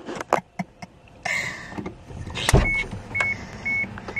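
A brief rushing whir, then a car door thumps open about two and a half seconds in, and the car's door-open warning chime starts beeping steadily, about twice a second.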